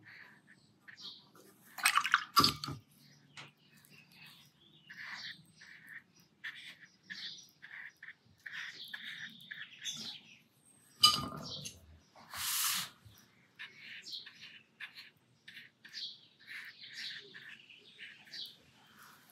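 Small birds chirping and twittering in the background, with many short calls throughout. There are a couple of louder knocks, about two seconds in and just past the middle, and a brief scratchy noise just after the second knock.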